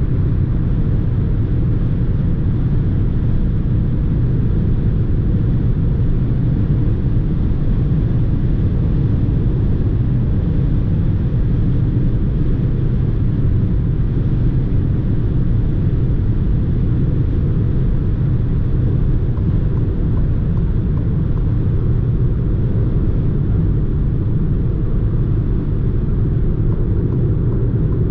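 Citroën C4 with a 1.2 PureTech engine heard from inside the cabin at motorway speed: a steady low rumble of tyres, wind and engine.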